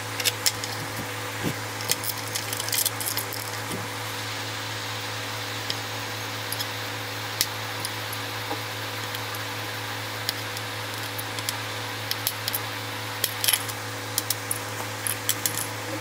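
Scattered light clicks and scrapes of a snap-off cutter knife blade trimming the excess off a homemade XT connector and of the small connector being handled, over a steady low hum.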